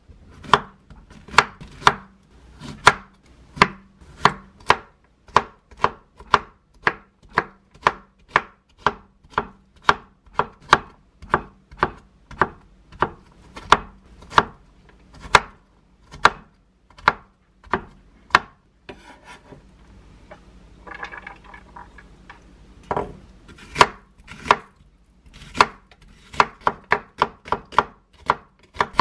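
Chef's knife chopping Korean zucchini on a wooden cutting board, a steady knock of the blade on the board about one and a half times a second. After a pause of a few seconds with soft rustling, the chopping resumes faster, slicing an onion near the end.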